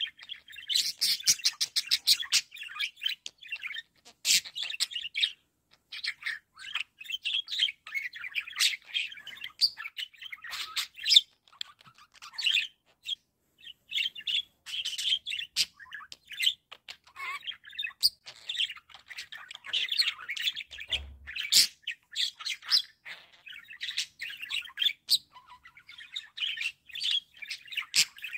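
Budgerigar warbling: a fast, continuous chatter of high chirps, clicks and squeaks, broken by short pauses.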